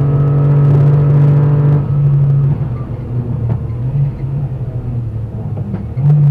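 Dacia Sandero 0.9 TCe Cup rally car's turbocharged three-cylinder engine heard from inside the car, pulling hard at a steady pitch. It lifts off about two seconds in and runs unevenly off the throttle as the car slows, then comes back loud on the throttle near the end.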